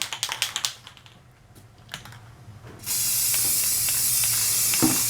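A quick run of sharp rattling clicks, then about three seconds in an aerosol spray-paint can starts spraying blue paint in a steady loud hiss.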